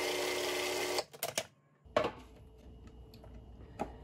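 Food processor motor running while blending a thick chocolate avocado pudding, cutting off about a second in. Then a few light plastic clicks and knocks as the lid comes off and a spatula works in the bowl.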